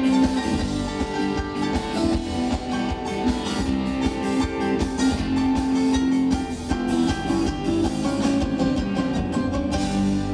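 Live rock band playing loudly: electric guitars, bass, keyboards and a drum kit keeping a steady beat.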